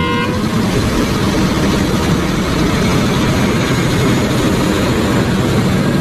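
Heavy mining machinery running: a Liebherr mining excavator and a large haul truck, with the excavator loading dirt and rock into the truck's bed. The noise is loud and steady, heaviest in the low end. A steady pitched tone stops within the first half-second.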